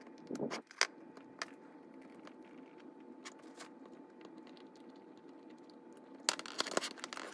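Faint handling of a small metal HO-scale model locomotive chassis and its parts: scattered light clicks and scrapes, with a quicker run of clicks near the end, over a faint steady hum.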